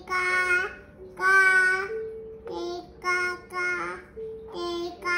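A toddler singing a wordless tune in a string of short held notes, about seven of them, the loudest about a second in.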